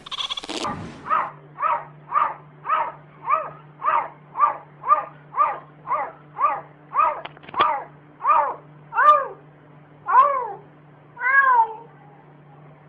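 Cat meowing over and over in a long, even run of short calls, each rising and then falling in pitch. The calls come about two a second, then slow to about one a second and grow longer near the end.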